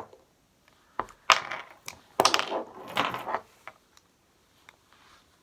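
Pliers clamping on a cast of lead jig heads and snapping the heads off the sprue: sharp clicks, then three short bursts of metallic clinking as the pieces break loose and knock together.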